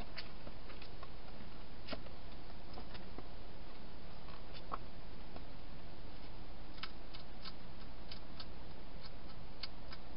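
Wild hedgehog inside a plastic feeding box, eating dry food: irregular small crisp clicks and crunches, coming thicker near the end, over a steady hiss.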